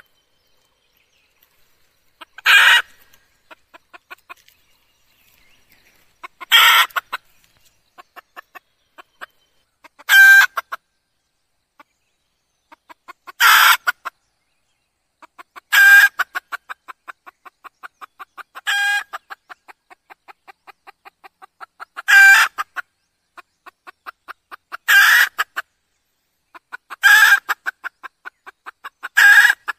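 Red junglefowl hen calling: about ten loud, short clucking calls spaced a few seconds apart. Runs of soft, rapid clucks fill the gaps between them.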